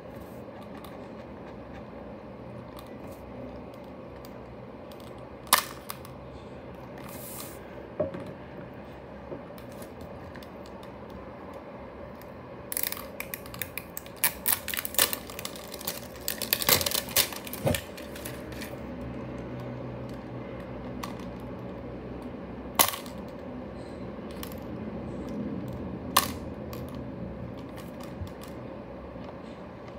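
Hard plastic cow-shaped toy dispenser being handled: a few isolated sharp plastic clicks, and in the middle a run of rapid clicking and rattling for about five seconds as fingers work the front of the toy.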